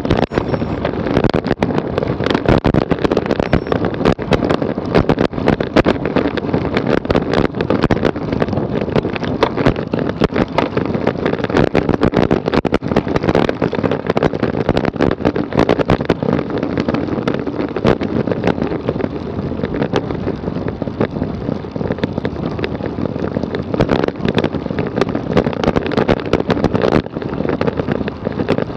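Loud, continuous wind noise on the microphone of a camera on a road bike riding at speed, buffeting irregularly throughout.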